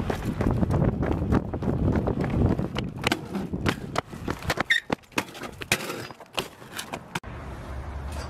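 BMX bike rolling on concrete: a low rumble of tyres on the pavement with many sharp clicks and knocks from the bike as it is hopped and pivoted. About seven seconds in this cuts off suddenly and gives way to a steady low hum.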